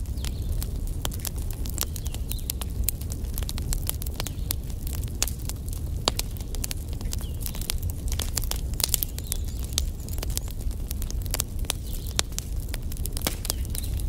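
Wood fire burning in a brick fireplace, crackling with frequent irregular sharp snaps and pops over a steady low rumble of flames.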